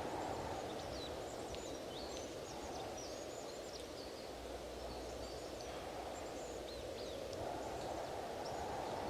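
Wind blowing in gusts, easing a little mid-way and picking up again near the end, with many small birds chirping in short high calls throughout.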